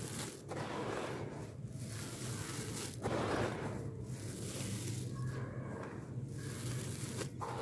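Dry crumbled charcoal powder pouring and sifting from hands into a basin, with hands pressing and crunching into the heap: a gritty hiss that swells with each handful, loudest about three seconds in.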